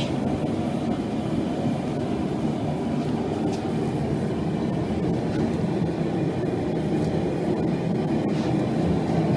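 Steady roar of the furnace burner heating a crucible of molten metal.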